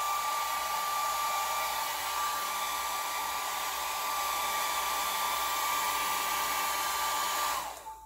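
Small handheld hair dryer blowing steadily, with a high motor whine over the rush of air, used to dry wet paint on a canvas. Near the end it is switched off, and the whine drops in pitch and fades as the motor winds down.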